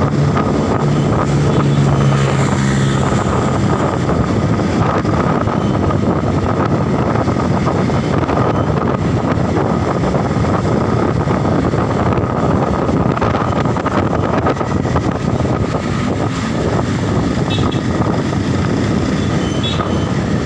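Steady loud rush of wind and road noise picked up on a moving motorcycle riding through traffic, with a low hum in the first two seconds or so.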